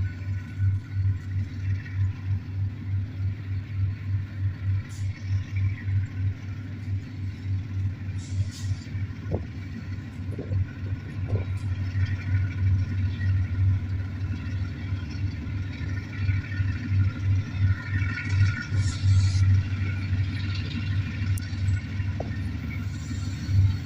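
Low, rapidly pulsing rumble of a large engine running steadily, with a few short clicks and brief hisses.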